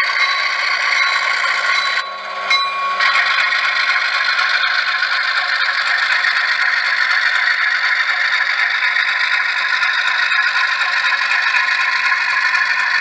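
Model freight train cars rolling steadily along the layout track, the wheels giving a continuous scraping rattle and clatter, with a brief dip about two seconds in.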